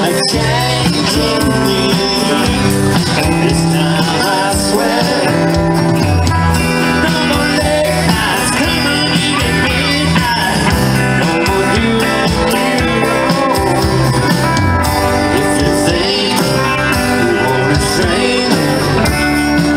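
Live country band playing an instrumental break: electric guitars over bass and a drum kit, at a steady beat.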